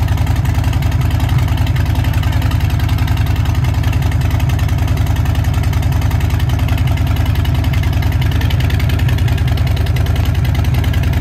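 2021 Harley-Davidson Fat Boy 114's Milwaukee-Eight V-twin idling steadily through Big Radius exhaust pipes, with a deep, even, rhythmic pulse.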